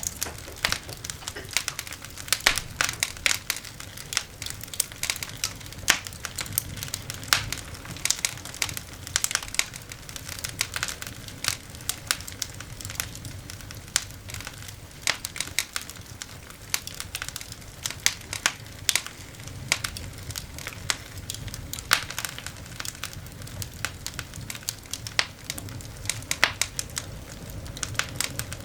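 Coal fire burning in a cast-iron dog grate, crackling continuously with frequent irregular sharp snaps and pops over a faint low rumble.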